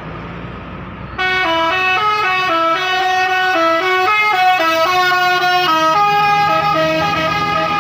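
Bus 'telolet' musical horn playing the 'basuri' tune, a melody of steady horn notes stepping up and down in pitch, starting suddenly about a second in over a low engine hum.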